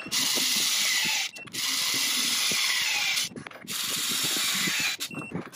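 Battery-powered torque wrench with a reaction arm running three times, a steady high whirring from its motor and gearing that lasts one to two seconds each time, as it tightens large nuts to a set torque. Short pauses separate the runs, and a fourth run begins near the end.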